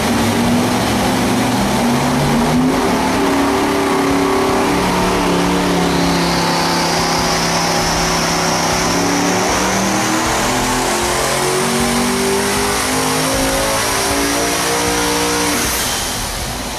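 Steve Morris quad-turbo engine for the Devel Sixteen running and revving, its pitch stepping up and down. A high whine rises slowly from about five seconds in, and the engine drops away near the end.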